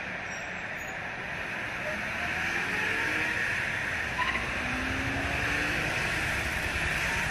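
Steady city background ambience: a constant hiss over a low rumble, with faint sliding tones of distant traffic. It swells slightly a couple of seconds in.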